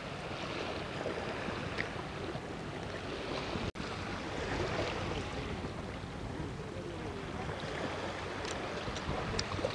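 Steady wash of sea surf and wind, with a few faint small ticks over it.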